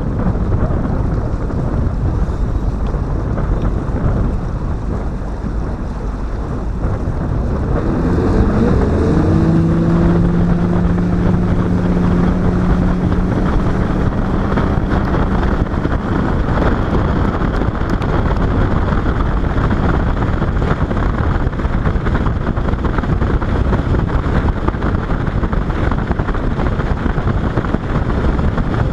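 Boat motor running under way, with heavy wind buffeting the microphone and a steady rush of wind and water. About eight seconds in the engine note rises as the throttle opens, holds steady for several seconds, then is lost under the wind noise.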